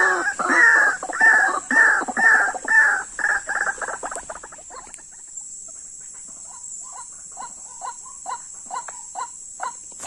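White-breasted waterhen calling: a loud series of repeated croaking notes, about two to three a second, that speeds up and fades away after about four seconds. A softer run of short notes follows at a similar pace.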